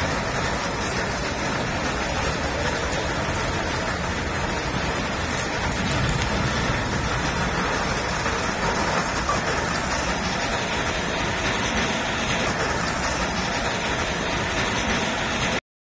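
Steady rushing noise of floodwater in a flooded room, with no let-up; it cuts off suddenly near the end.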